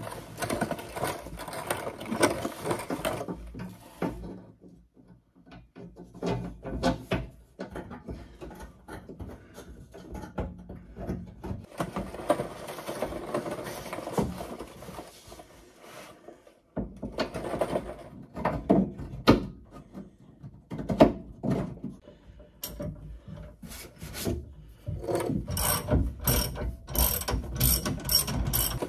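Hand ratchet wrench clicking in short runs, mixed with knocks and clatter of metal parts being fitted; a fast run of clicks near the end.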